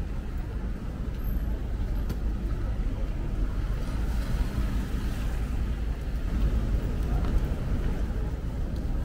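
Steady low rumble of city street traffic, with cars running along the road close by.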